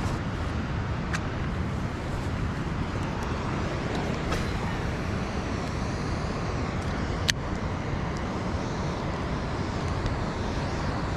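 Steady rushing background noise, heaviest in the low end, with a few light, sharp clicks.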